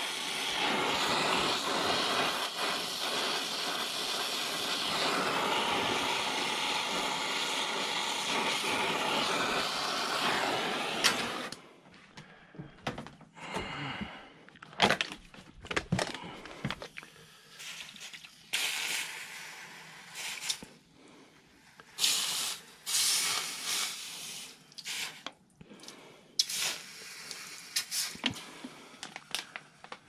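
Brazing torch flame hissing steadily while heating a copper refrigerant line joint, cut off suddenly about 11 seconds in. After that come scattered short knocks, clicks and rustling.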